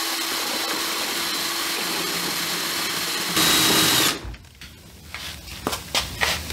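Cordless drill spinning a paint-mixer paddle in a bucket of liquid fertilizer, a steady whir with a high whine. It speeds up briefly about three and a half seconds in, then stops suddenly. A few light knocks follow.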